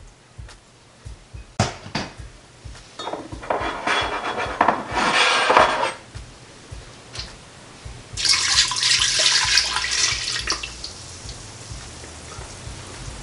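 Liquid poured from a glass measuring cup into an Instant Pot's inner pot over its trivet, in two pours: first water for about three seconds, then beef broth starting about eight seconds in. A few light knocks of glass come between the pours.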